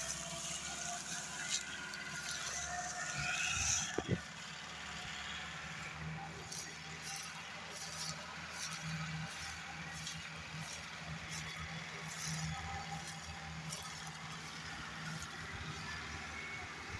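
Diesel farm tractor engine running under load with a steady low drone as it hauls a heavily loaded sugarcane trolley, its exhaust smoking black.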